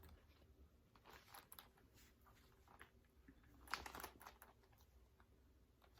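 Near silence with faint handling noises of a fabric cosmetic case: scattered soft clicks and rustles, a little louder about four seconds in.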